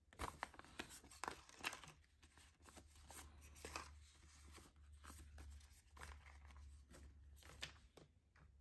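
Faint rustling and light clicks of Canadian polymer banknotes being handled and slipped into a plastic cash tray, a few crisper snaps in the first couple of seconds and softer handling after.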